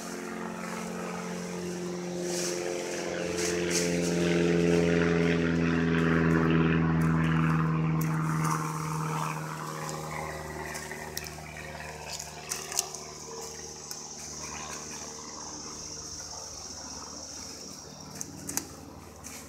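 An engine drone swells and fades, loudest about four to eight seconds in, over the rustling and snapping of cut leafy branches being handled and piled.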